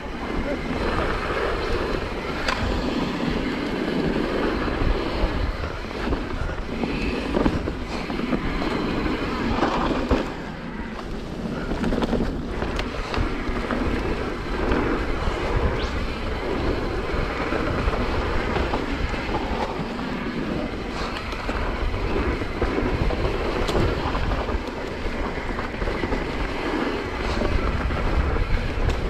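Mountain bike ridden down a dirt forest singletrack: wind noise on the handlebar camera's microphone over the tyres rolling on dirt, with frequent short clicks and rattles from the bike.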